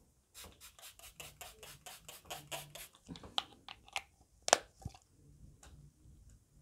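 Smashbox setting spray pump bottle spritzed at the face in a quick run of short hissing sprays, about five a second for a couple of seconds, followed by a few separate short sounds, the loudest about halfway through.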